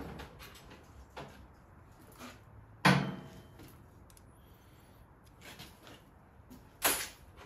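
Knocks and clunks of hands and tools working around a motorcycle's carburetor, with two sharp, loud clunks about four seconds apart and a few fainter taps between.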